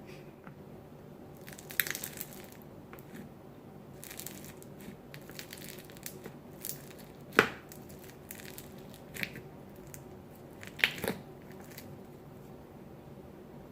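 Beaded slime being squeezed and pressed by hand, giving scattered crunches, crackles and sharp pops. The loudest pop comes about seven seconds in, and another near eleven seconds.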